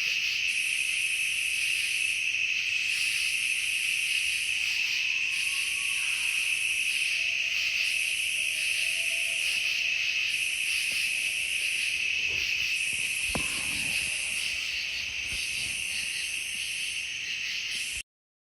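Night insect chorus: a steady high cricket trill, with a second, higher insect sound pulsing about once every second and a quarter. A faint distant rising call about five seconds in, a soft knock about thirteen seconds in, and the sound cuts off abruptly near the end.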